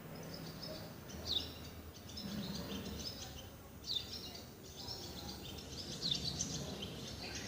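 Birds chirping over steady background noise, with a louder short downward-sweeping call three times, about every two and a half seconds.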